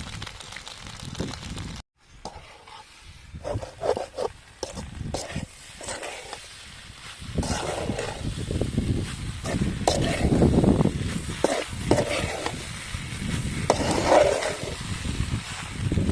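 Pasta being stirred and scraped through masala in a hot cooking pan, with irregular scrapes and a light sizzle. The sound drops out completely for a moment about two seconds in.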